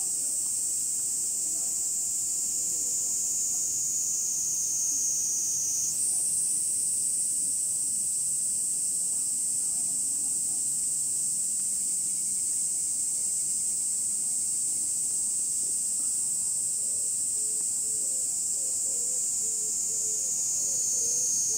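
Summer cicadas droning in a steady high-pitched buzz. The pitch slowly sinks, jumps back up about six seconds in, then sinks again.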